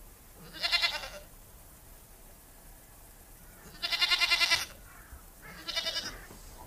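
Goat bleating three times. Each call has a fast quavering tremble, and the middle one, about four seconds in, is the longest and loudest.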